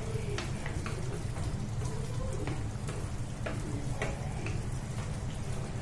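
Curry gravy simmering and crackling in a frying pan while a wooden spatula stirs boiled eggs into it, with scattered light clicks of the spatula against the pan over a steady low rumble.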